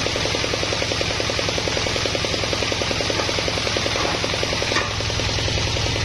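Bandsaw mill running steadily with a fast, even knocking pulse over a low hum, its blade turning while no log is being cut. A single short knock sounds near the end.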